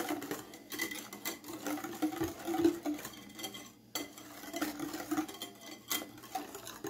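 Wire whisk stirring thin chocolate cake batter in a glass bowl, its wires clicking and scraping against the glass in quick, irregular strokes.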